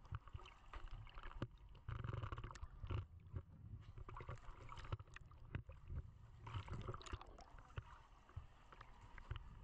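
Muffled underwater sound heard through a GoPro's waterproof housing: irregular low rumbling swells with many scattered sharp clicks and a faint hiss.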